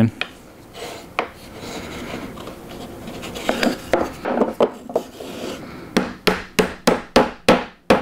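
Wooden blocks being handled and rubbed on a workbench, then about eight sharp taps in quick succession near the end, a small hammer tapping a Festool Domino connector fitting into its hole in the timber.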